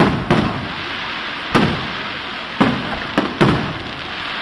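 Aerial firework shells bursting in a closing display: about six sharp bangs, irregularly spaced from a quarter second to a second apart, two close together near the end, over continuous noise.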